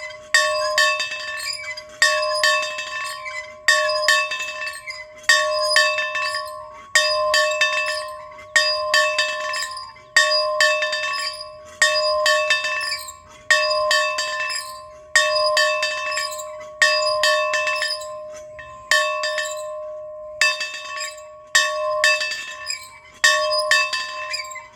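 A custom-built bell rung over and over in a steady rhythm, about one strike every second and a half, each strike ringing out and fading before the next.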